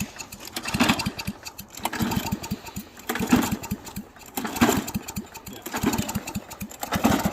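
Straight-piped lawn mower engine with its airbox removed being pull-started again and again, about six pulls, each giving a short burst of sharp firing pulses that dies away without the engine catching. It is being fed WD-40 through the open intake and is flooded.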